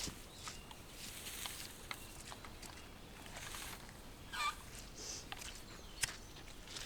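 A single short, wavering bird call about four and a half seconds in, over a faint outdoor background with scattered light clicks.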